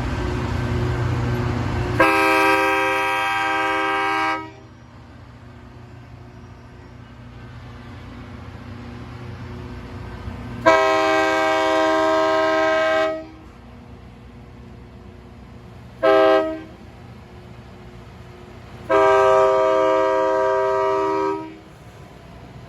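Diesel locomotive's multi-chime horn sounding the grade-crossing signal: two long blasts, a short one and a final long one. A low rumble is heard for the first two seconds.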